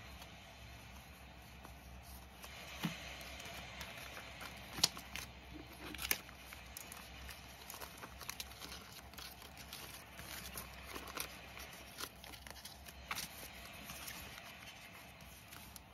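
Sticker sheets and clear plastic binder sleeves rustling and crinkling as they are handled and sorted, with a few sharp taps and clicks.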